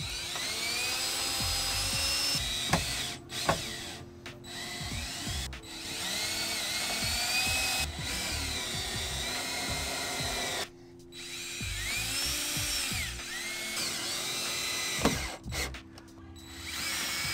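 DeWalt cordless drill driving screws into wood, in several short runs, its motor whine rising and falling in pitch with the trigger.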